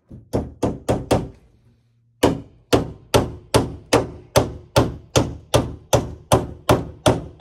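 Hammer driving nails into a 2x4 lumber frame. Four quick blows, a short pause, then a steady run of blows about two and a half a second.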